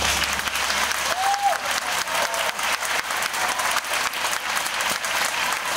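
Audience applauding: many hands clapping densely and steadily after a children's song ends.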